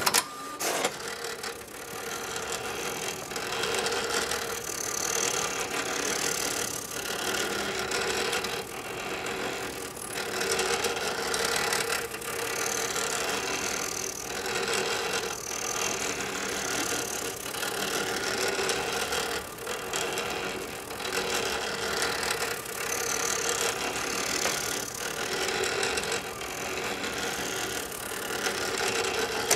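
HP 7470A pen plotter drawing curves: the pen-carriage and paper-drive motors whir continuously, swelling and easing every couple of seconds as the circles are traced. One or two sharp clicks sound at the very start.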